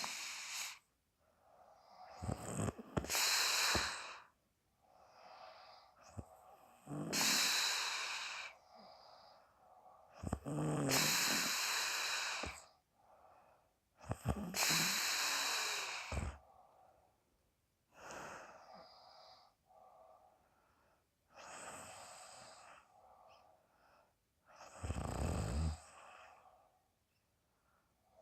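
A sleeping woman snoring: about seven loud, airy breaths, one every three to four seconds, blowing out through the mouth, some with a low rattling snore underneath.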